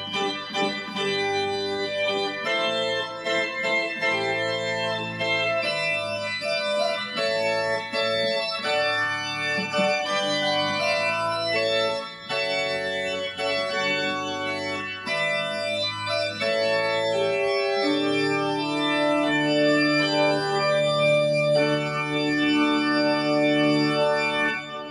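Large pipe organ playing full chords on its principal chorus, two manuals coupled for a stronger sound and the pedal adding a deeper bass. The chords move for most of the passage, then a final chord is held for about six seconds and cuts off just before the end.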